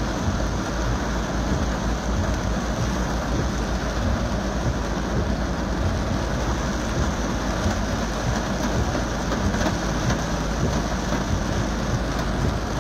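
Very heavy rain falling steadily on a car, heard from inside the cabin.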